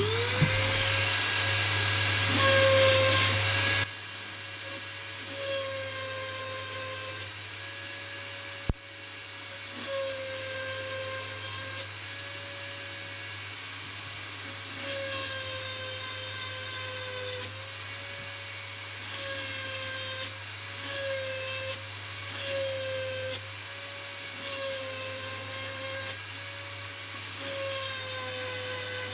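Dremel-type rotary tool with a chainsaw-sharpening stone spinning up at the start, then running with a steady high whine. The pitch dips briefly every second or two as the stone bears on the cutters of a semi-chisel chain being sharpened. It gets quieter about four seconds in.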